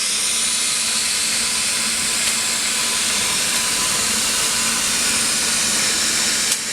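Automatic double-head circumferential welding machine running its welding arcs around a tank seam: a steady, loud hiss with a faint constant hum underneath. A brief click just before the end.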